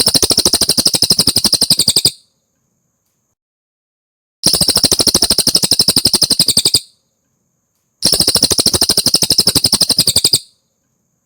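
Cililin song: three rapid trills of fast repeated high notes, each lasting a little over two seconds, with pauses of about two seconds between them.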